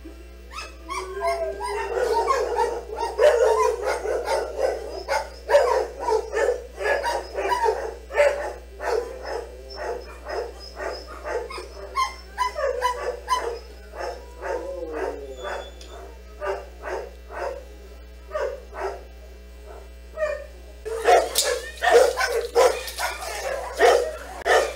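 A dog barking over and over in short yipping barks, about one or two a second, with a longer drawn-out call in the first few seconds. The barks come thicker and louder in the last few seconds.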